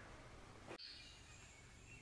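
Near silence: faint outdoor background that drops out abruptly just under a second in, then returns with faint high-pitched chirping.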